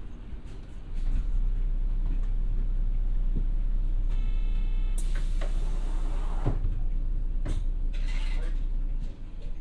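Inside a city bus: the engine's low rumble gets suddenly louder about a second in and runs on. Near the middle a short electronic chime sounds, followed by a loud hiss of compressed air, typical of the pneumatic doors working, and then a couple of knocks.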